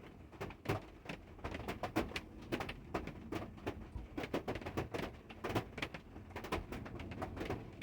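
Ratchet and socket clicking in short, irregular runs of sharp ticks as the oil drain plug is tightened.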